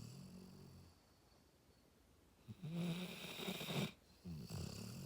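Dog snoring in slow, heavy cycles. One snore fades out in the first second, then after a pause comes a loud, hissy snore lasting about a second and a half, followed by a softer one that carries on.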